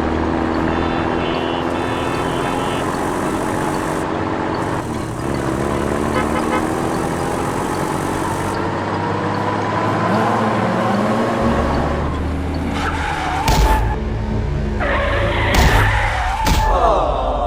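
Cartoon vehicle sound effects: engines running with slowly shifting pitch, over background music, getting louder and busier near the end.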